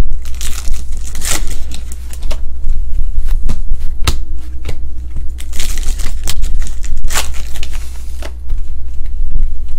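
Foil trading-card pack wrappers crinkling and tearing as packs are ripped open and the cards inside are handled, in a string of sharp crackles and rustles over a steady low hum.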